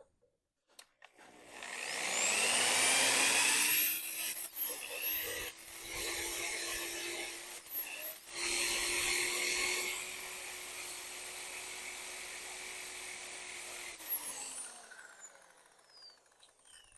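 A hand-held grinder spins up about a second and a half in and runs at a high whine while cutting steel. Its pitch dips briefly under load twice, and it winds down near the end.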